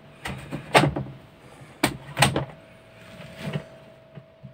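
A series of about six sharp knocks and clacks, with a faint steady hum in the second half: handling noise around an opened washing machine.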